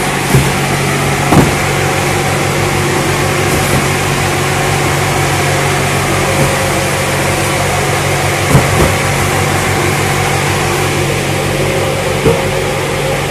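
A steady engine-like machine drone inside a steel shipping container, with a few dull thumps from cardboard cartons being handled and set down.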